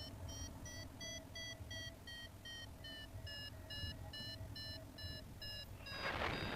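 A paragliding variometer beeping steadily, about three short beeps a second, which signals that the glider is climbing in lift. The pitch drops a little about halfway through. Wind rumbles on the microphone, with a rush of wind near the end.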